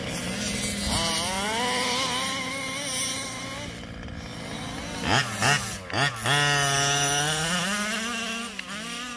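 Small two-stroke engine of a 1/5-scale gas RC car revving up and down as it runs. There are a few sharp, loud throttle blips about five to six seconds in.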